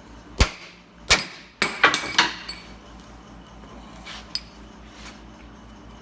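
Several sharp metal knocks and clinks of a socket and drive shaft yoke being set in a steel bench vise, about five in the first couple of seconds, then two lighter clicks a little later.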